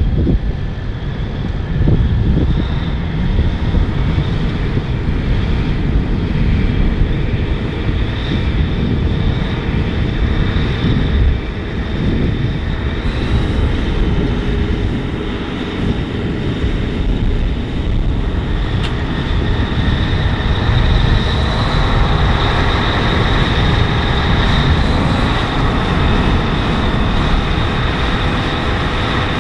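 Kinze-repowered John Deere 8970 four-wheel-drive tractor's diesel engine working under load as it pulls a moldboard plow through the soil. Steady engine noise with a high whine that grows stronger about two-thirds of the way through.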